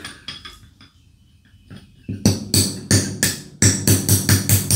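Hammer striking a steel pin punch against the rock shaft valve housing of a John Deere 3038e, driving a part loose. Faint clicks come first. About two seconds in, a run of ringing metal-on-metal blows begins and quickens to about five a second.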